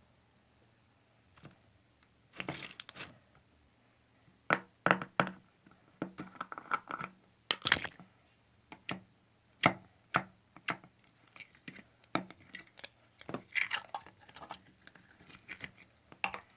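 Slime being squeezed and poked by hand, giving irregular sharp pops and clicks, some in quick pairs, with short crinkly stretches between them.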